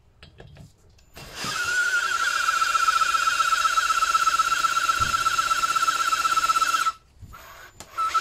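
Ryobi cordless drill spinning a cylinder-head valve against its seat to lap it in with cutting compound. The motor runs with a steady high whine, starting about a second in, stops near seven seconds after a few clicks, and starts again near the end.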